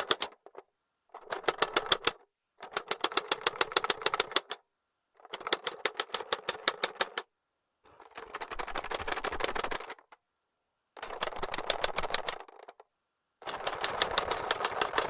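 The plastic clockwork of a 1975 Tomy owl clock toy clicking rapidly as it is worked by hand. The clicks come in six runs of one to two seconds with short pauses between, at about seven clicks a second, and a couple of the runs blur into a denser rattle.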